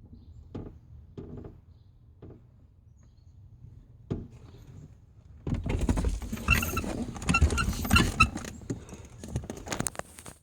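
A truck engine being cranked by its starter on a hard start: a few faint knocks and a sharp click, then about four and a half seconds of loud, rapid, uneven cranking that stops just before the end.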